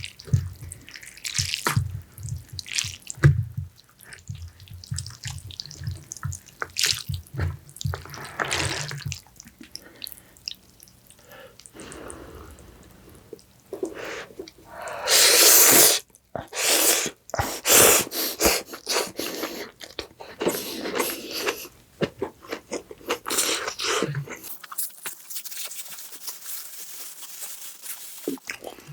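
Close-miked wet eating sounds of beef pho: slurping noodles and broth, lip smacks and chewing, with many small clicks and a longer loud slurp about halfway through.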